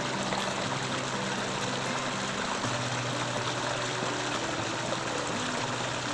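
Steady rush of a flowing trout stream, with soft background music holding low notes underneath.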